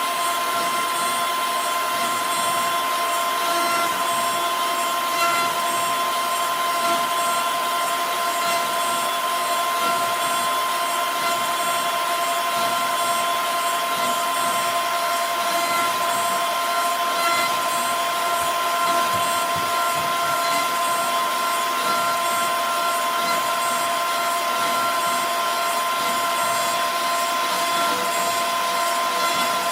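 OneFinity CNC router spindle running steadily and cutting into pine, a constant high whine over a hiss of cutting.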